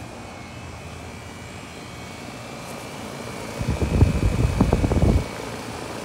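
1999 Rheem/Corsaire straight-cool central air conditioner condensing unit running steadily, with a faint steady high whine. From about three and a half seconds in, a loud, gusty low rumble from the fan's discharge air buffeting the microphone over the top grille, dropping away near five seconds.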